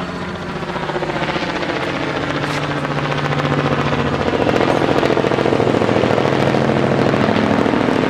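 Light helicopter flying overhead, its rapid rotor beat steadily growing louder.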